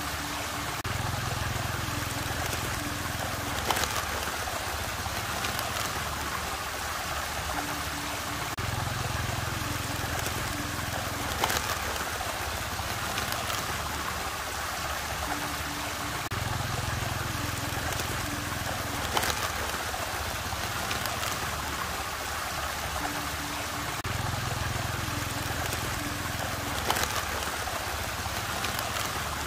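Water rushing and swirling steadily in a whirlpool. A low hum comes in for a few seconds about every eight seconds, and a sharp click sounds once in each cycle.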